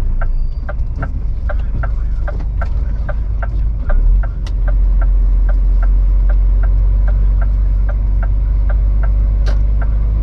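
Lorry's turn-signal indicator ticking steadily, about two and a half ticks a second, over the low rumble of the diesel engine heard inside the cab; the rumble grows louder about four seconds in.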